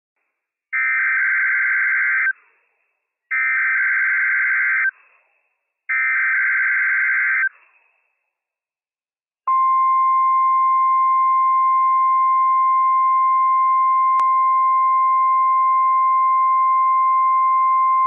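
NOAA Weather Radio SAME alert header: three identical buzzy digital data bursts, each about a second and a half long, about a second apart. After a pause of about two seconds, the 1050 Hz warning alarm tone starts and holds one steady pitch, sent as a test of the weather radio warning system.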